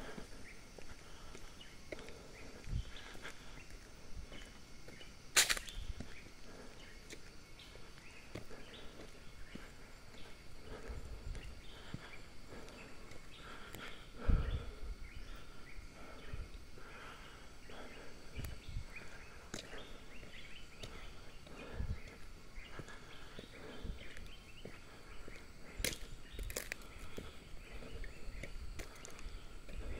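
Footsteps of a hiker walking on a concrete forest track, irregular soft thumps over a faint steady forest background. A sharp click about five seconds in and another near the end.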